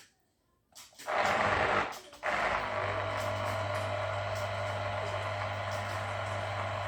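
A small electric kitchen appliance's motor running steadily with a constant low hum, after a short burst of noise about a second in.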